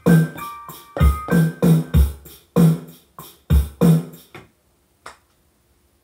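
Hip-hop instrumental beat played on a Maschine Mikro Mk1 pad controller: deep kick drums about once a second under piano chords. It stops about four and a half seconds in, followed by a single short click and then silence.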